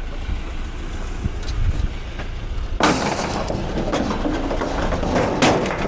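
Low vehicle engine rumble, then about three seconds in a sudden loud clatter and scraping of scrap metal as a radiator goes onto the load, with a few sharp knocks near the end.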